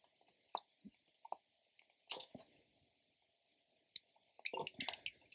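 Plastic wiring-harness connectors on a Sur Ron electric dirt bike's controller being worked loose and unplugged by hand: faint scattered clicks and crackles, with a small cluster about two seconds in and a busier run near the end.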